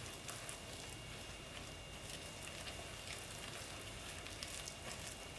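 Faint, fine crackling and squishing of a silicone spatula stirring thick baked-donut batter in a glass bowl.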